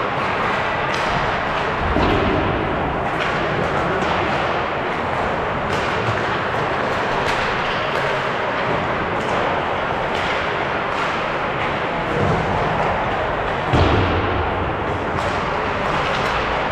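Ice hockey game play on a rink: a steady wash of arena noise with short clicks, and heavy thuds against the boards about two seconds in and twice near the end.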